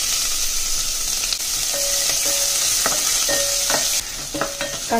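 Chopped onion sizzling loudly in hot oil in a stainless steel pressure cooker, stirred with a wooden spatula that knocks lightly against the pot a few times. The sizzle drops suddenly about four seconds in.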